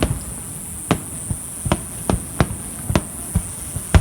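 Fireworks bursting in a quick, irregular series of sharp bangs, about eight in four seconds, the last the loudest.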